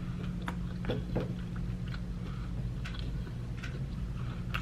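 A person chewing a mouthful of lo mein noodles with the mouth closed, with scattered small clicks and a couple of soft wet mouth sounds about a second in, over a steady low hum.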